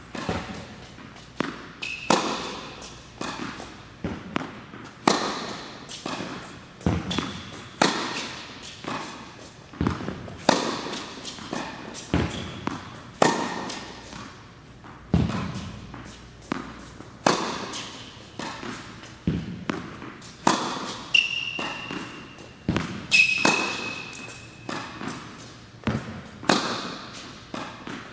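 Tennis ball being struck by a racket in a baseline rally. A sharp hit comes every two to three seconds, with lighter ball bounces between, echoing in an indoor tennis hall. A few brief high squeaks come about two seconds in and again past the twenty-second mark.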